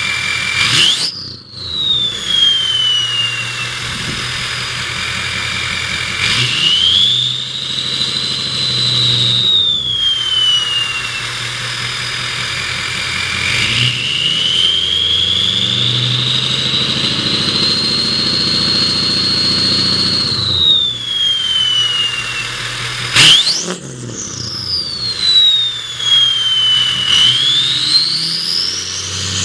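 2003 Ford 6.0L Power Stroke diesel with an aFe Stage 2 intake, revved repeatedly: the turbocharger whistles loudly over the diesel, its pitch rising as the engine revs up and sliding back down as it drops off. Twice the whistle jumps up sharply in a quick blip, and near the end it climbs steadily higher.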